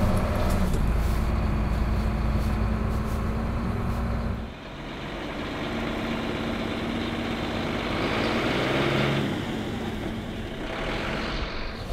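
Mercedes-Benz Zetros truck's diesel engine running in first gear, heard from inside the cab. Its heavy low rumble drops off suddenly about four and a half seconds in, and the engine runs more quietly after that.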